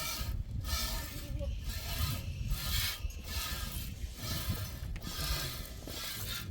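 Repeated scraping or rubbing strokes, about one a second.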